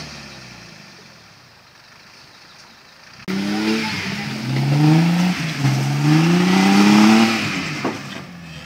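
Off-road 4x4 engine revving. A fading engine note for the first three seconds cuts suddenly to a much louder stretch of repeated revs, each rising in pitch and dropping back.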